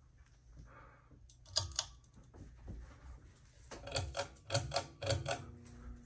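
Pull-chain switch of a Harbor Breeze Edenton ceiling fan being worked: a pair of sharp clicks, then a quick run of about six clicks with the chain rattling. Near the end the fan motor starts up with a steady low hum.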